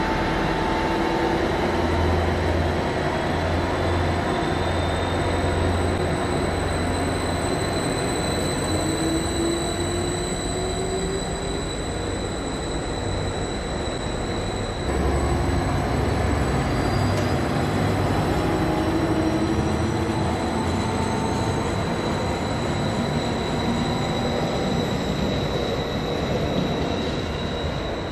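Greater Anglia Class 755 bi-mode train running close by, with engine and running noise and pitch lines rising slowly as it gathers speed. After a cut about halfway through, train noise continues from another unit at the station.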